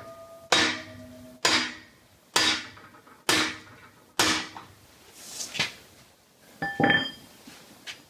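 Small hammer striking the steel rod of a cylinder liner puller five times, about once a second, each blow a sharp metallic knock with a ringing tail. The blows are driving a dry sleeve liner out of a Perkins 4.236 diesel block. A few lighter knocks and clinks follow near the end.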